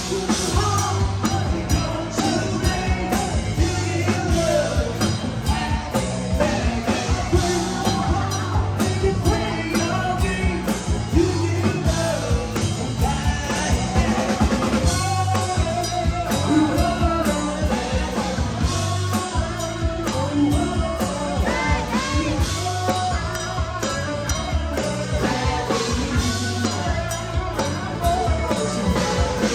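A rock band playing live, with singing over drum kit, bass and guitar.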